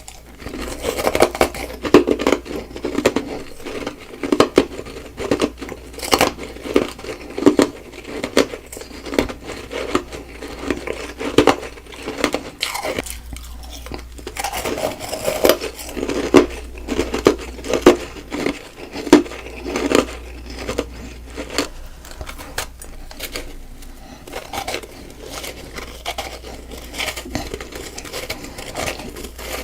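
Close-up crunching of a person biting and chewing crunchy snowballs of ice, a fast run of crisp crunches in bursts with short pauses, one around the middle and one about two-thirds of the way through.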